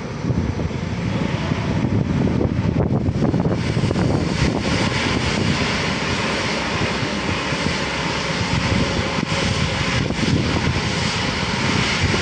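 Klemm KR805-3G drilling rig running: a loud, steady mechanical drone of engine and machinery.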